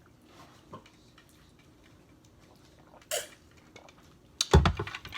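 Tableware handled during a meal: light clicks, a short noisy crunch about three seconds in, then a clatter of sharp knocks with a heavy thump near the end.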